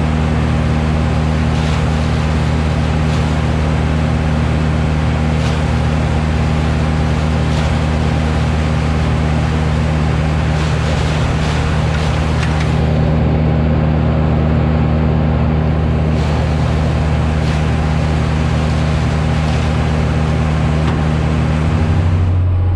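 Farm tractor's diesel engine running steadily at a constant speed. The sound changes abruptly just before the end.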